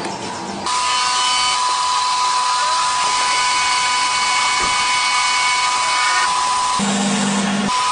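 CNC lathe machining: a steady high-pitched whine over a loud hiss, starting just under a second in. Near the end the whine gives way for a moment to a lower hum, then returns.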